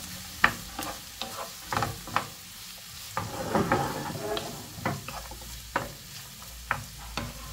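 Chopped onion and carrot sizzling as they fry in a frying pan, with a utensil clicking and scraping against the pan as they are stirred. The clicks are sharp and irregular, with a busier stretch of stirring near the middle.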